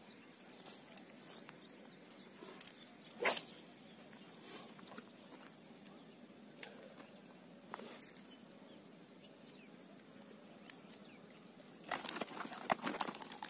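Snakehead fish flapping and thrashing on dry grass as it is gripped, a burst of rapid slaps and rustles near the end. Before that, one short sharp rustle a few seconds in and faint scattered ticks.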